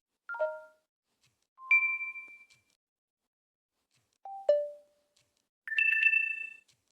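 LG phone notification and system tones played one after another with short silences between: a quick three-note falling chime, a two-note rising ding, a two-note falling tone, then a brighter, longer chime near the end.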